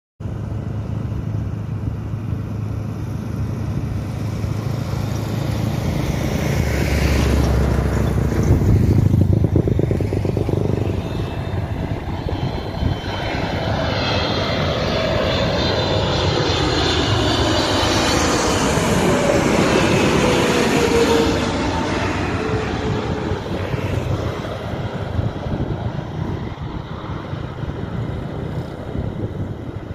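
Boeing 777-300ER's GE90 jet engines on final approach, passing low overhead. The heavy rumble builds to its loudest about a third of the way in, then the engine whine slides down in pitch as the airliner moves away and slowly fades.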